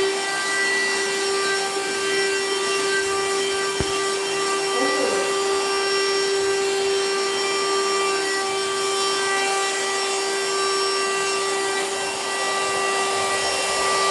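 Vacuum cleaner motor running at full speed with a steady high whine. There is a single click about four seconds in.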